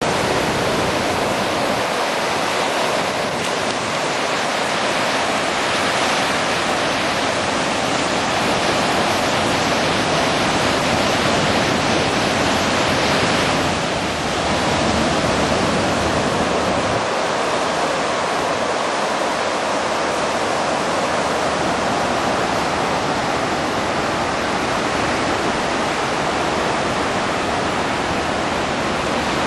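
Steady, even rushing of ocean surf along a sandy beach, with wind on the microphone.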